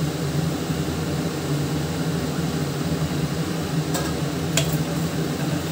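A steady low machine hum over the faint sizzle of baingan bharta frying in a steel pot on a gas stove. Two light clicks about four seconds in, as the slotted steel spoon touches the pot while chopped coriander goes in.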